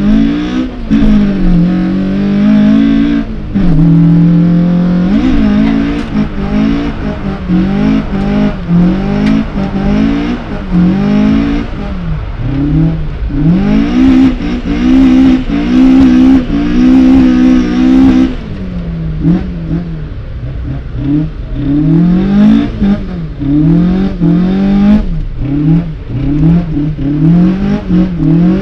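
Toyota AE86 Corolla's 4A-GE four-cylinder on individual throttle bodies, heard from inside the cabin, revving hard up and down over and over while drifting. Revs are held high for several seconds about halfway through.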